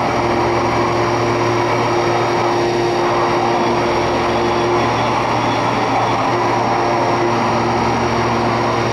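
1996 Hurco BMC 4020 vertical machining center running: a steady mechanical hum and whir with a constant high whine, one of its tones dropping out briefly about halfway through.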